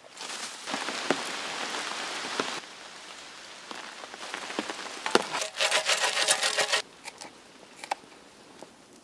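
Pattering, rain-like noise that changes abruptly in stretches. A steady patter for the first two and a half seconds, then a quieter stretch with scattered crackles, then a louder, dense crackling between about five and seven seconds.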